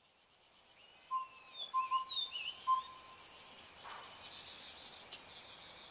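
Mountain forest soundscape: a steady, fast-pulsing high insect trill with birds whistling rising and falling notes, and four short, even, low whistled notes in the first half.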